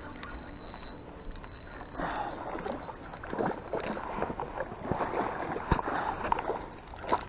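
Water splashing and sloshing as a soft plastic lure is worked back through the water near the bank, with irregular clicks and rustling of handling starting about two seconds in.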